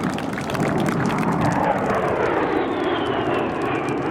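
Airplane flying past: a steady rushing engine noise, with a thin high whine that falls in pitch about three seconds in.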